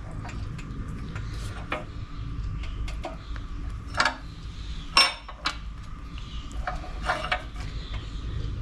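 Scattered metal clinks and knocks from a bench vise and a small-engine carburetor being handled as a new fuel inlet fitting is pressed into the carb body. The sharpest come about four and five seconds in, the second one with a short metallic ring. A steady low hum runs underneath.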